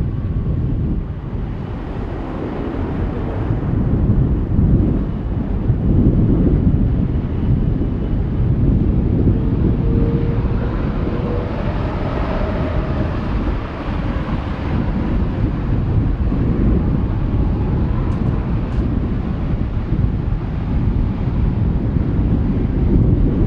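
Jet airliner engines rumbling, mixed with strong wind buffeting the microphone; a short whine sounds about ten seconds in.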